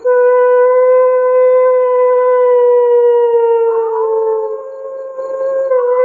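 A long, loud, steady howling wail held at one pitch, sagging slightly and fading briefly about two-thirds through before picking up again.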